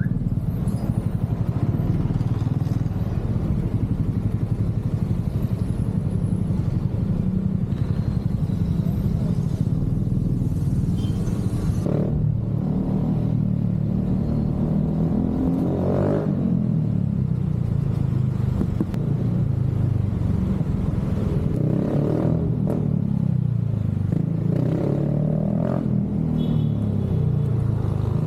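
Motorcycle exhaust running, the engine note rising and falling several times as the rider revs and eases off.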